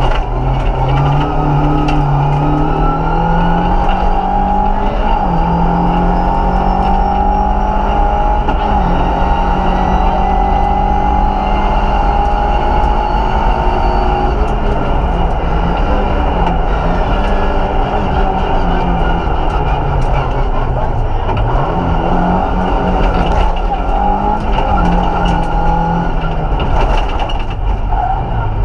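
Vauxhall Nova 1.6 8-valve rally car's four-cylinder engine at full throttle, heard from inside the cabin: revs climb and drop sharply at several gear changes in the first half, then rise and fall repeatedly over a steady road and tyre noise.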